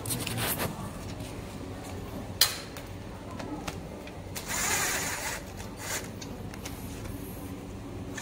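A cordless drill-driver runs for about a second and a half near the middle, tightening a bolt on a bicycle rear rack. It is set among light handling noise, with one sharp click a little earlier.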